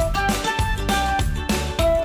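Background music with a steady beat and a clear melody line.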